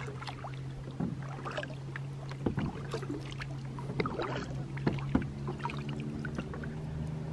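Double-bladed kayak paddle dipping into calm lake water stroke after stroke, with small irregular splashes and drips running off the blades. A steady low hum runs underneath.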